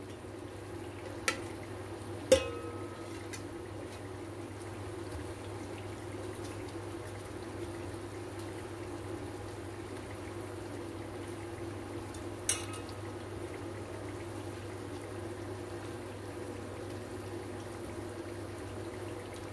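Steel tongs clinking a few times against a steel pot while fried mathri are dipped in sugar syrup, the sharpest clink about two seconds in, over a steady background hum.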